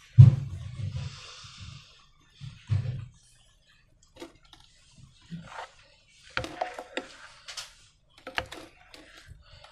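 Hands handling slime-making materials and balloons: a few dull thumps, a brief hiss about a second in, then scattered clicks and taps.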